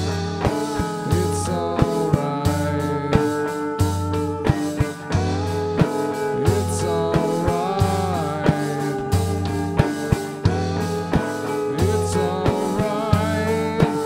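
A live band playing a psychedelic rock song: electric guitars with sustained and bending melody lines over a pulsing bass line, a drum kit and a hand frame drum keeping a steady beat.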